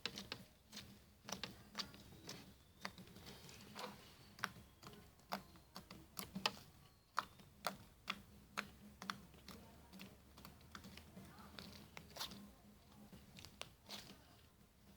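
Slime being squished and pressed by hand, giving faint, irregular sharp clicks and pops, about one or two a second.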